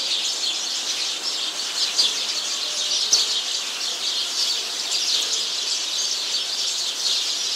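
A flock of sparrows chirping together as they settle into trees to roost for the night, many short calls overlapping into one continuous chatter.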